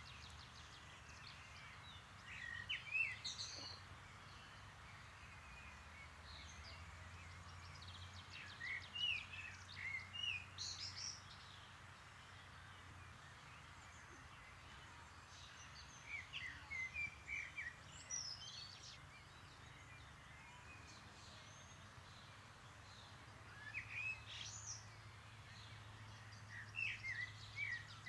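A songbird singing in short phrases of varied high chirps and trills, four phrases about seven seconds apart, over a faint steady low background hum.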